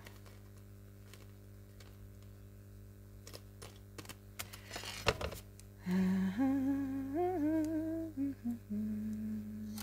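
A woman humming a short wordless tune to herself, starting about six seconds in and moving up and down in small steps. Before it there are a few faint clicks and a brief rustle with a click about five seconds in.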